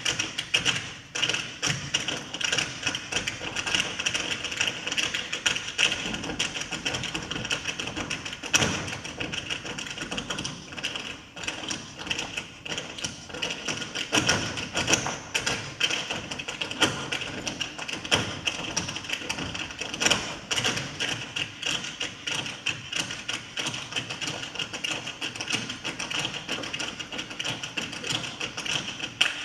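Dancers making their own rhythm with no music: a dense, uneven stream of percussive taps and thuds, several a second.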